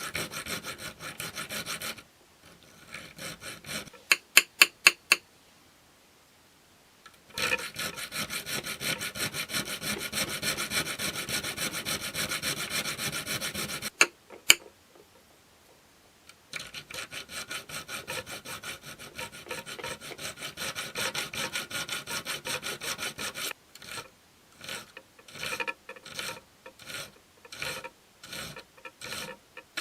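A hand file rasping on a Morakniv's steel blade in rapid back-and-forth strokes. Three spells of several seconds are broken by pauses that hold a few sharp clicks, and near the end the strokes come slower and one by one.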